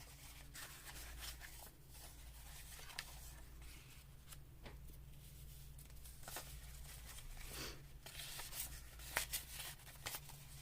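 Faint rustling and light ticks of paper ephemera being handled and shuffled on a work table, over a steady low electrical hum.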